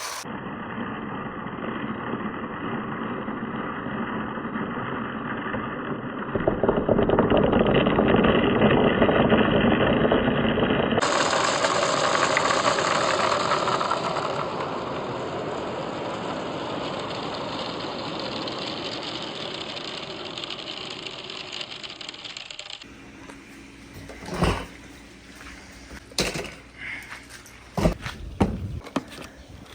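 Marbles and balls running down a marble run: a steady rolling rattle on the tracks, louder for a few seconds in the middle and changing abruptly twice, then separate clicks and knocks of balls striking the course near the end.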